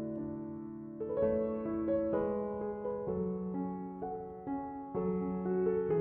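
Background music: a mellow electric piano playing slow held chords that change about every second.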